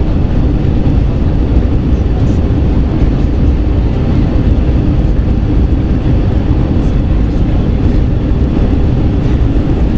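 Steady cabin noise inside an Airbus A320 airliner: jet engine and airflow heard from a window seat, a loud, even rumble weighted toward the low end, as the aircraft descends toward landing.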